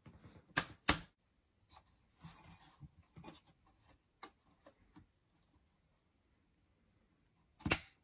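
Two sharp clicks about a third of a second apart as a DDR3 RAM module is pressed down into its motherboard slot and the retention latches at both ends snap shut, the sign that the module is seated. Faint taps of handling follow, then another sharp click near the end.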